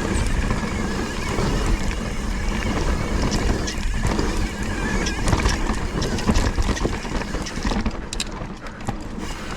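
Mountain bike rolling over a rough dirt trail: tyre rumble with frequent knocks and rattles from the bike, under heavy wind buffeting on the action camera's microphone.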